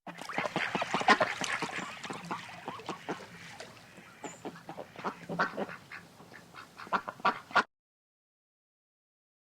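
Waterfowl giving a rapid, irregular run of short calls that stops abruptly about three-quarters of the way through.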